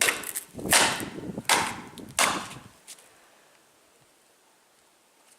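Four sharp cracks, each trailing off quickly, about three-quarters of a second apart, as an old mobile phone is struck.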